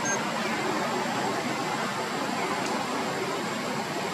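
Steady outdoor background hiss with a thin, steady high-pitched whine above it; no monkey calls stand out.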